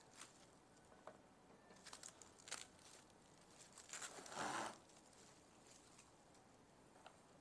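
Faint rustling and crinkling of plastic cling film being pulled from its box and wrapped around a ball of dough, with one louder rustle about four and a half seconds in.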